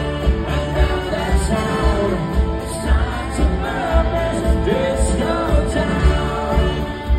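Live Britpop band playing at full volume: electric guitars, bass and drums with a steady beat and sung vocals, recorded loud through a phone's microphone from within the crowd.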